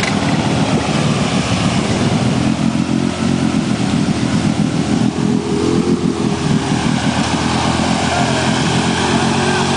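ATV engine running loud and steady under load as the four-wheeler ploughs through a deep, water-filled mud hole.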